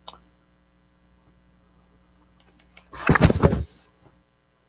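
Running shoes handled close to the microphone: a small click at the start, then a short loud rustling scrape about three seconds in, over a faint steady electrical hum.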